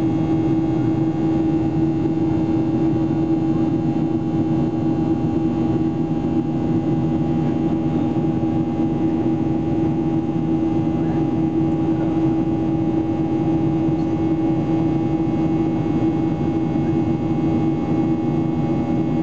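Boeing 737-800 cabin noise heard beside the wing: the CFM56-7B turbofans running at climb power after take-off, a steady drone of a few held tones over a broad rush of airflow.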